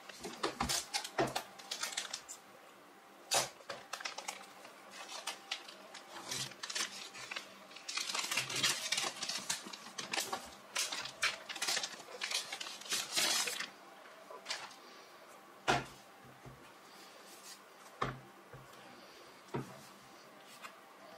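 Clear plastic protective film crinkling and rustling as it is pulled off a Dell XPS 13 laptop, among many sharp clicks and crackles. The crinkling is densest in the middle, and near the end come a few single light knocks as the laptop is handled and set on the wooden table.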